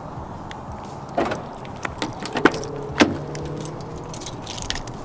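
A 1999 Nissan Stagea's door being unlatched and opened, with keys jangling: three sharp clicks of the handle and latch about a second, two and a half and three seconds in, and a short low hum around the last two.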